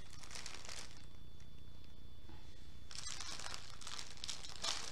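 Clear plastic packaging bag crinkling as it is handled: a rustle for about a second, a quieter pause, then more crinkling from about three seconds in, starting with a sharp click.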